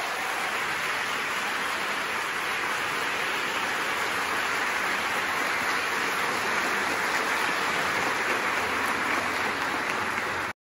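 Audience applauding, a steady dense clapping that cuts off abruptly near the end.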